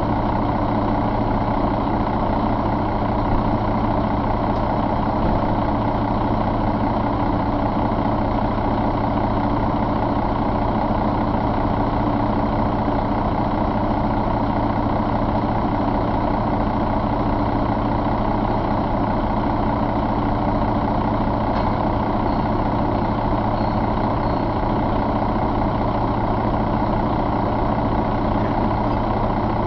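2006 Mercedes-Benz MBE4000 inline-six diesel engine idling steadily.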